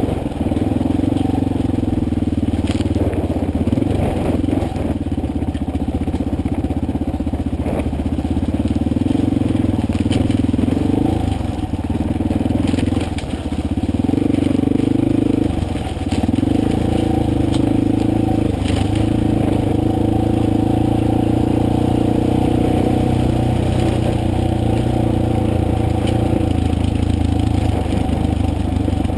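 Motorcycle engine running steadily while riding a rough, unpaved forest road, with scattered clatter and crunching from stones and bumps under the tyres. The engine note dips briefly twice near the middle, as with a throttle change.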